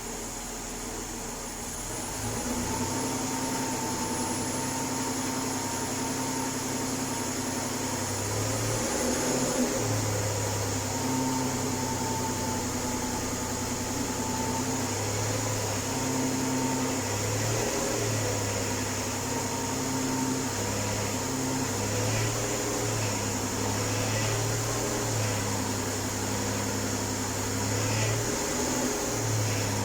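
2005 Ford Escape Limited engine running cold, a steady mechanical hum with a high hiss over it, making the strange noise that the owner and several mechanics have not been able to trace. It gets louder about two seconds in, and the low hum wavers on and off through the rest.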